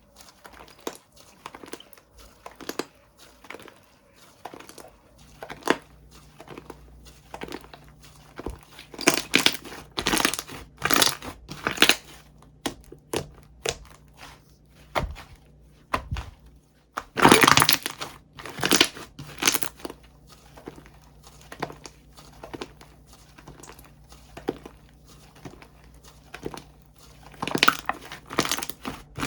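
Slime being squished and stretched by hand, with many small crackling, popping clicks and louder bunches of crackles about a third of the way in, just past halfway and near the end.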